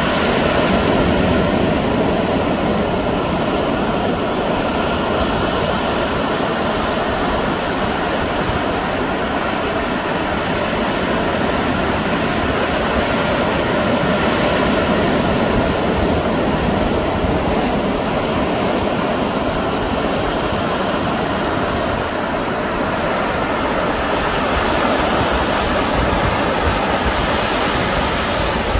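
Ocean surf rushing steadily on the shore, a continuous even roar with no single wave standing out, and a flickering low rumble underneath.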